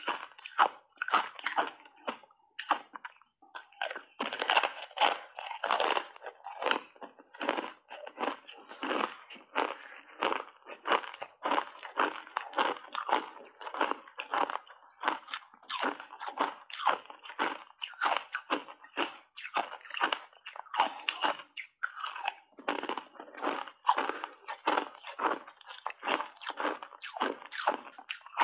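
Close-up chewing and crunching of thin block ice coated in matcha powder, a steady run of sharp crunches with a couple of brief pauses.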